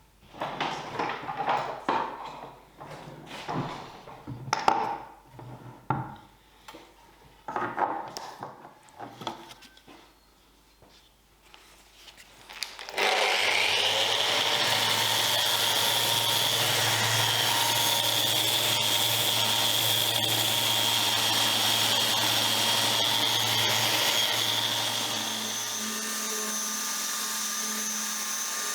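Scattered knocks and taps of wood and tools being handled. About halfway through, a power tool starts suddenly and runs steadily with a low hum and a high whine. Its sound drops to a lower level a couple of seconds before the end.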